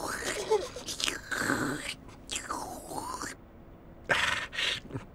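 Drawn-out, wordless voice sounds with breathy noises: a long falling-then-rising vocal glide in the middle, then two short hissy bursts near the end.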